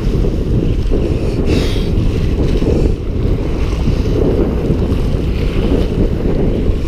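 Strong wind buffeting the camera microphone in a constant low rumble, with surf washing against the rocks.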